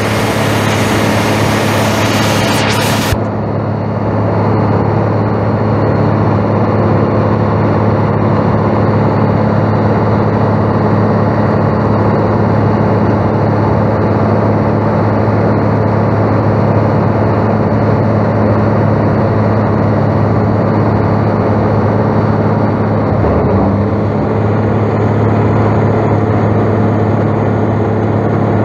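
Caterpillar six-cylinder turbo diesel engine of a 1993 Rexworks Maxigrind 425G horizontal grinder, running steadily at a constant speed. A loud hiss over the engine cuts off suddenly about three seconds in.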